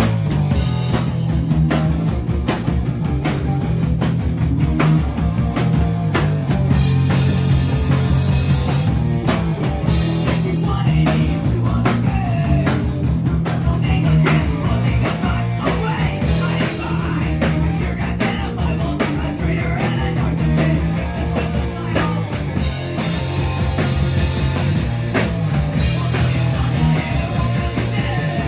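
A hardcore punk band playing live, with distorted electric guitar, bass guitar and a drum kit pounding out dense, continuous hits.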